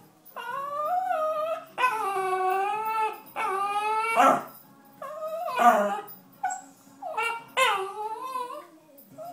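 Cairn terrier whining and crying, a string of about seven long, high cries that rise and fall in pitch with short breaks between them, the later ones shorter: the dog begging for pizza.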